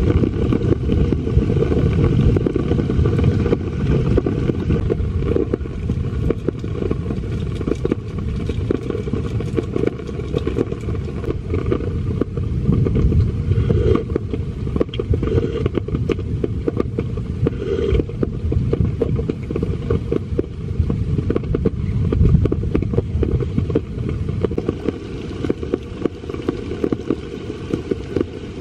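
Heavy rain falling on a tent's rain fly: a dense, steady patter of drops over a low rumble, with a few louder swells.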